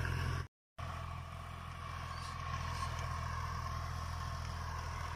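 Tractor engine running steadily in a low, even hum. The sound drops out completely for a moment about half a second in, then the hum carries on slightly quieter.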